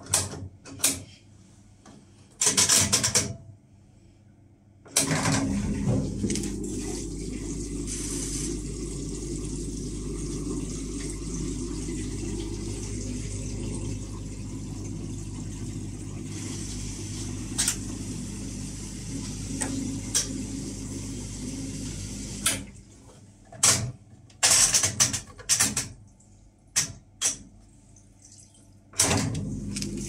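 Arctic L800TA front-loading washing machine: a few clicks as its panel buttons are pressed, then the machine starts running with a steady low hum. About seven seconds before the end it stops, there are more clicks and knocks, and it starts again near the end.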